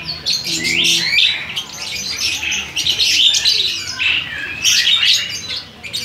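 A flock of caged lovebirds chattering: many high chirps and short squawks overlapping without a break.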